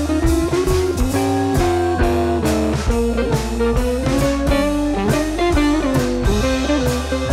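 Background music: a song with guitar and a steady drum beat.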